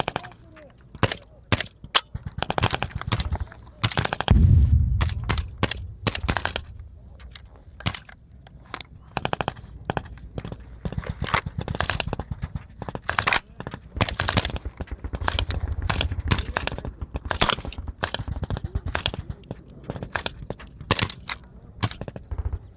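Close-range machine-gun and rifle fire: single shots and short rapid bursts, going on the whole time. A deep, heavy boom comes about four seconds in and rumbles on for a couple of seconds, and another low rumble follows around fifteen seconds in, both explosions at the targets.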